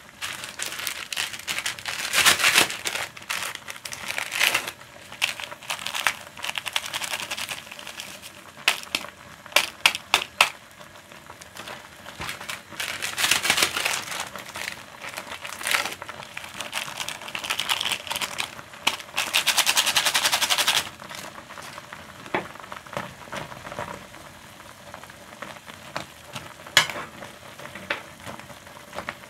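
Plastic ramen seasoning sachets crinkling and being torn open, in irregular bursts of crisp crackles and sharp clicks, the longest burst near the two-thirds mark. Underneath, a steady low hiss of the pot cooking on the stove.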